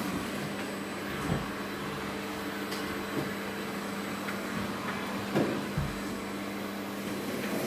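A motor hums steadily, with a few dull knocks: one about a second in and two close together around five and a half seconds in.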